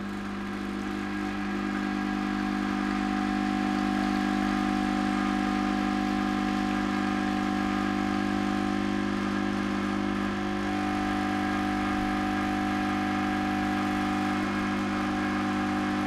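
Profitec Go espresso machine's vibratory pump buzzing steadily as it pushes water through the puck during an espresso shot.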